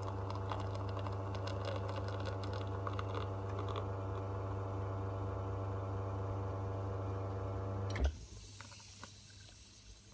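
La Marzocco GS3 espresso machine's pump humming steadily while a shot runs through a bottomless portafilter. About eight seconds in the pump cuts off with a thump and a fading hiss follows, marking the end of the shot.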